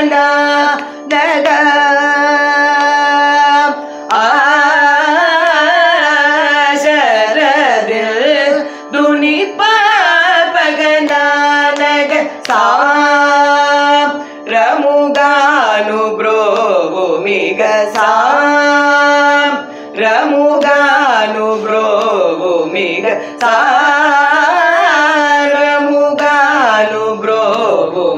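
Women singing a Carnatic song in long, gliding, drawn-out phrases with short breath pauses between them, over a steady drone note.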